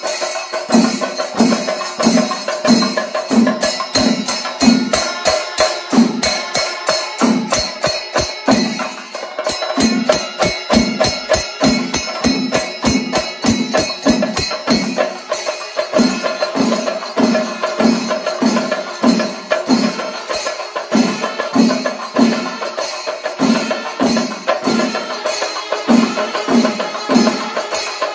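Kerala chenda melam: a large ensemble of chenda drums beaten with sticks and ilathalam hand cymbals, keeping a steady beat of about two strokes a second, with a dense drum roll from about eight to ten seconds in.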